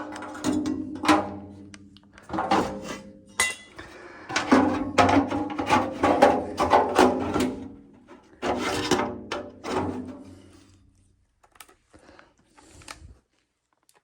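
Background music with a deep plucked bass line and percussive hits, ending about eleven seconds in; a few faint clicks follow.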